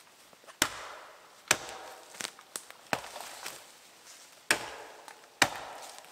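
Axe chopping into a standing dead tree: five heavy blows at uneven intervals of about a second, with a couple of lighter knocks between them.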